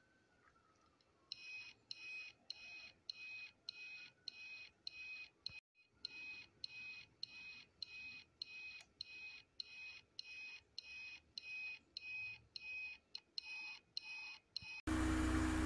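Electronic beeper in a brass Voyagers! Omni prop replica sounding a steady series of short, high beeps, about two a second. Near the end the beeping gives way to a loud burst of hiss with a low hum.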